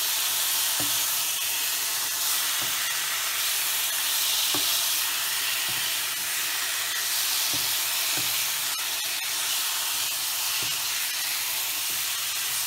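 Freshly added curd-marinated chicken sizzling in hot oil with fried onions in a non-stick pan, a steady hiss, while a wooden spatula stirs it with soft knocks every second or two.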